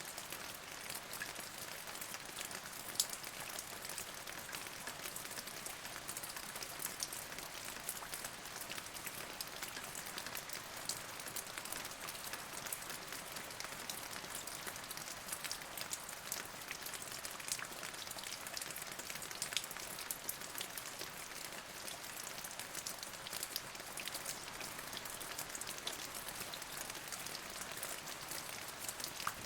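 Steady rain, with many individual drops ticking sharply against surfaces through an even hiss.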